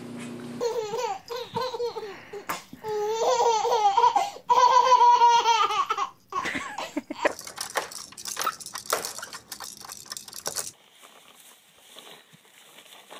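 A baby laughing: repeated high-pitched squealing giggles, loudest in the first half, breaking into shorter choppy laughs, then a much quieter stretch near the end.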